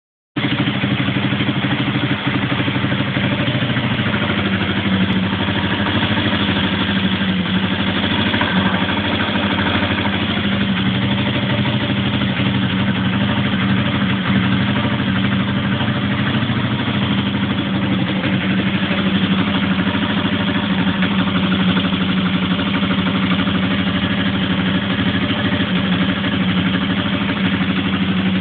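Yuki GY4 125 motard's air-cooled 125 cc engine idling steadily on its first start after assembly.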